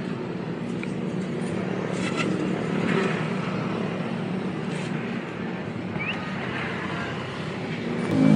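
Street traffic: a steady hum of cars passing on a busy city road, with a short high chirp about six seconds in.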